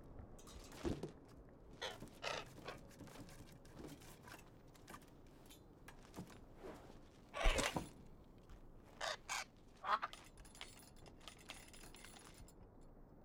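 Sparse quiet scrapes and rattles, one sharp knock about seven and a half seconds in, then a few short bird calls.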